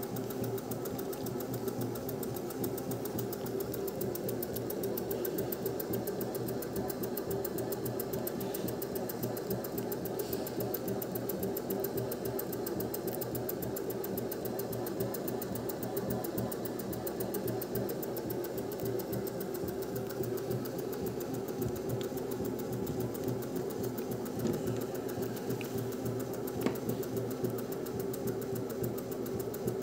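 Modified Honda generator with a magnet rotor spinning on a test run, giving a steady mechanical whir and hum, with a light click near the end.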